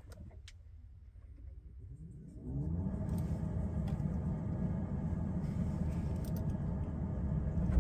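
Scania R450's 13-litre straight-six diesel starting. About two seconds in it catches with a brief rising note, then settles into a steady low idle, heard quietly from inside the cab.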